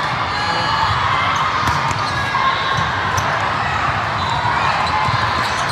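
Din of a large multi-court volleyball hall: many overlapping voices echoing in the open space, with scattered sharp ball hits and bounces from the courts.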